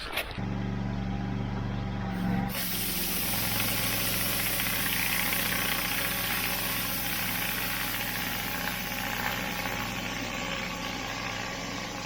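A pressure washer's engine running steadily, joined about two and a half seconds in by the continuous hiss of high-pressure water as a flat surface cleaner works over block paving.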